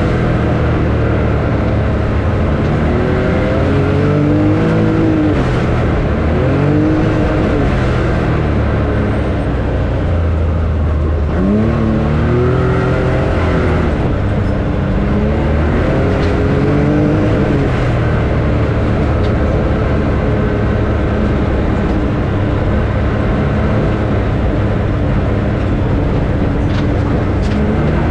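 A motor vehicle running under a steady loud rumble, its engine pitch rising and falling several times in the first half, then steadier.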